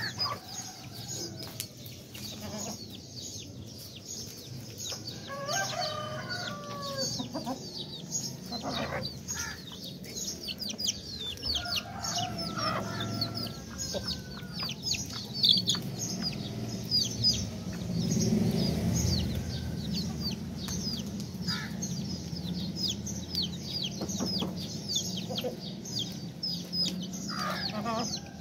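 Aseel chicks peeping constantly in quick, high, falling notes, with adult hens clucking now and then among them. A low rumble swells briefly a little past the middle.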